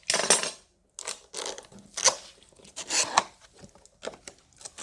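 A kit box being handled and opened: a string of irregular clicks, knocks and rustles, the loudest near the start and around two and three seconds in.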